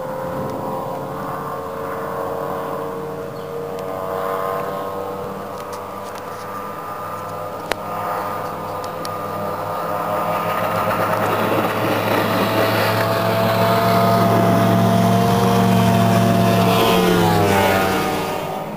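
Speedboat engine running at high speed, growing louder as the boat approaches and passing close by near the end, its pitch dropping as it goes past.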